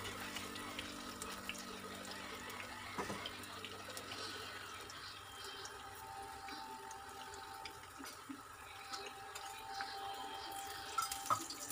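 Bonda batter balls deep-frying in hot oil in a kadai: a steady, fairly faint sizzle and crackle, with a few light clicks from a slotted spoon.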